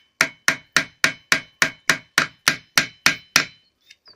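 Hammer driving a nail through a sheet of paper into a piece of firewood: a dozen quick, evenly spaced blows, about three or four a second, stopping about three and a half seconds in.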